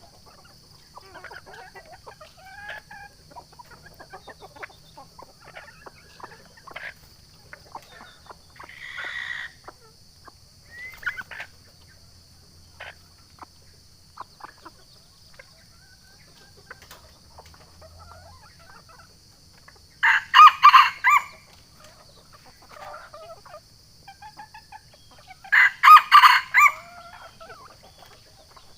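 Wild junglefowl rooster crowing twice, two short loud crows about five seconds apart in the second half, with softer clucks and short calls scattered throughout. This is a lure call, used to draw a rival rooster.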